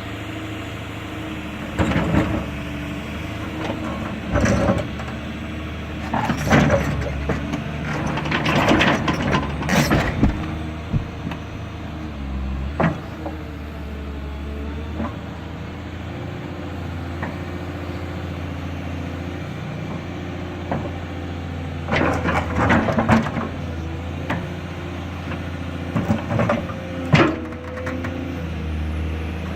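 Caterpillar 320D hydraulic excavator's diesel engine running steadily, with loud intermittent knocks and scrapes of steel on a heavy block as the machine works it.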